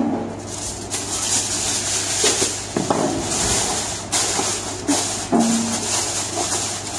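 Aluminium foil crinkling and rustling in irregular bursts as it is smoothed over a metal baking tray and crimped around its edges.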